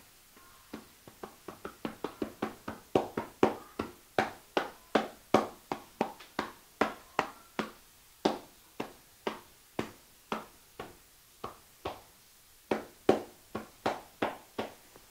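Hands striking the body in rhythmic percussive massage, about three sharp slaps a second, with a brief pause near the end.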